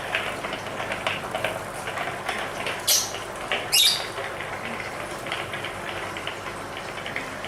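Lovebird chattering in quick, clicking chirps, with two short, shrill high calls about three and four seconds in.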